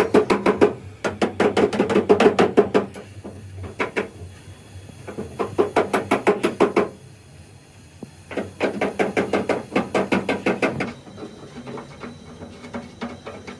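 Rapid hammering on metal in three bursts of quick, evenly spaced strikes. The first burst lasts about three and a half seconds, the second starts about five seconds in, and the third about eight and a half seconds in, with short pauses between them.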